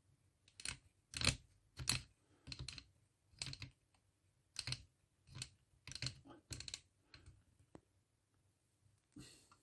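Sewing machine's stitch-program mechanism being set by hand: a dozen or so irregular mechanical clicks, some in quick pairs, as the control and the program levers move.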